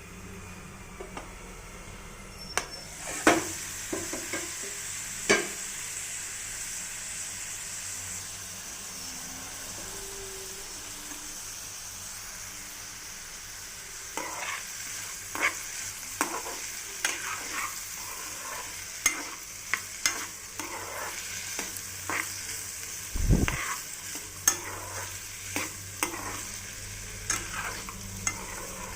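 Potato pieces frying in oil with a steady sizzle that strengthens about three seconds in, while a spatula stirs them, scraping and knocking against the pan. The knocks come more often in the second half, with one duller thump about two-thirds of the way through.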